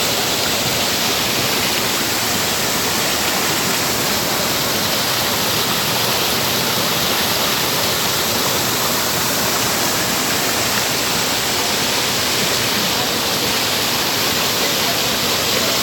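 Waterfall crashing: a steady, loud rush of falling water that is very noisy close up.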